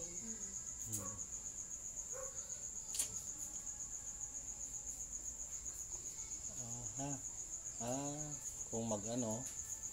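A cricket chirping in a steady, high, rapidly pulsing trill, with a few faint bits of speech in the background in the last few seconds.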